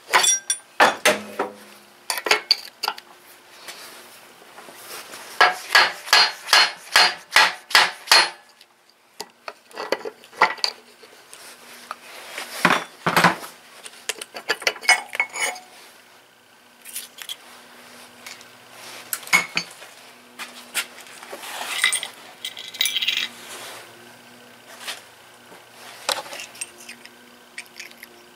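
Metal hand tools and engine parts clinking and knocking together during engine work, in scattered sharp strikes. A few seconds in, about nine sharp clicks come evenly spaced, roughly three a second.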